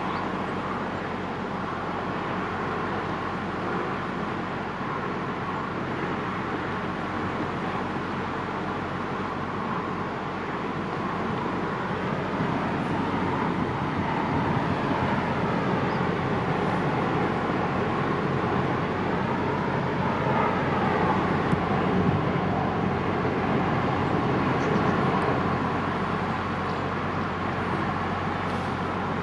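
Barge engine running with a steady drone. It grows louder through the middle and eases again near the end.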